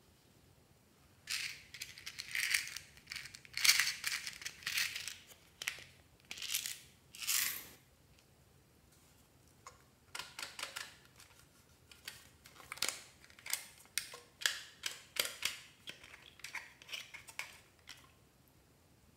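Hands handling small plastic toys and slime toppings: a series of rustling, crinkly scrapes, then after a short pause a run of small irregular clicks and taps like light plastic pieces knocking together.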